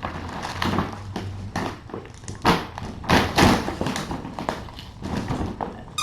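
Irregular rustling and light knocks from small items being handled and moved about, with a few louder rustles about halfway through.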